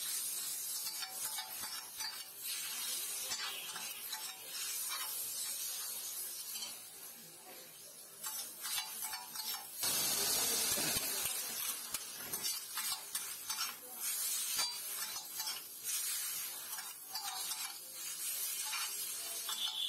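Two metal spatulas scraping and clattering on a flat metal griddle as noodles are tossed and chopped, with frying sizzle underneath. About halfway through there is a louder burst of noise lasting about two seconds.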